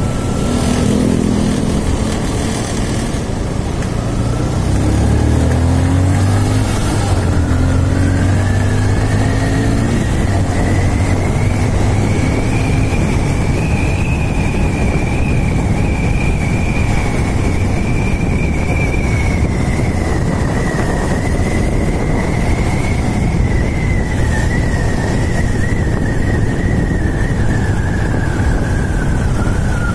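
Motorcycle engine pulling away and accelerating through several gear changes, then cruising, with air rushing over the microphone. A high whine rises and falls slowly with road speed.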